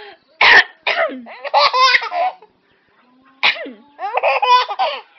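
A person coughs sharply and a baby answers with a burst of giggly belly laughter, twice over: a cough about half a second in with laughter after it, then another cough about three and a half seconds in with more laughter.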